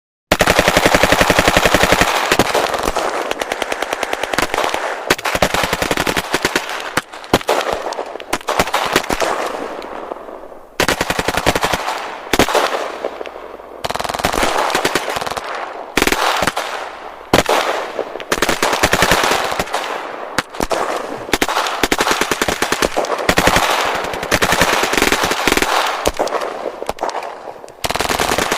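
Automatic gunfire: rapid shots in long, continuous bursts, some fading off before the next burst cuts in, as in a heavy firefight.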